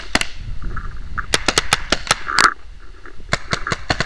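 Pump-action paintball markers firing: sharp pops, a pair at the start and then two quick runs of five or six shots each. A short call cuts in about halfway through.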